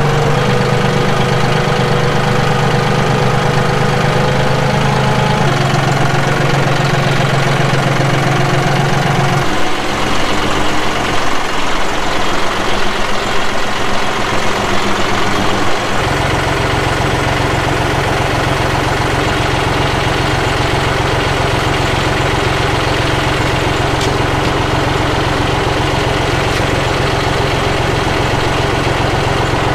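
John Deere tractor's diesel engine running steadily. Its note changes about ten and again about sixteen seconds in, then settles into a steady idle.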